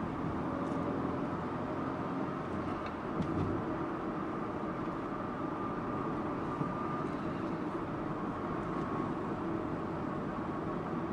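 Subaru Impreza Sports Wagon (GG2) driving along, a steady mix of boxer-engine drone and road noise with a few faint clicks.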